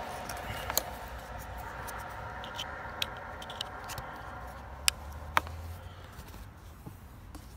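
Plastic wiring connector being handled and plugged onto the mass airflow sensor: about five sharp, scattered clicks and taps, the two loudest close together around five seconds in.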